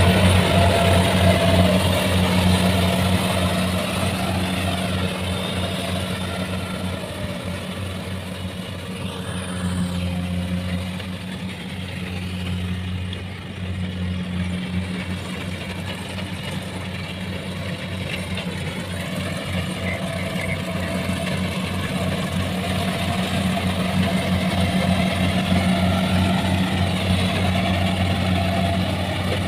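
Kubota rice combine harvester's diesel engine running steadily under load as it cuts rice. It fades as the machine moves away around the middle, then grows louder again as it comes back close.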